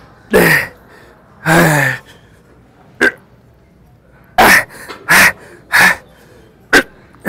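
A man's forceful exhales and grunts while pressing a plate-loaded shoulder press machine, about eight in all. The first two are longer grunts that fall in pitch; after about four seconds come short, sharp breaths in quick succession.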